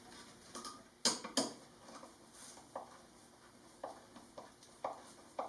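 Light knocks and clicks of plywood panels and tools being handled and set in place during glue-up, with two sharper knocks about a second in and then scattered softer ticks.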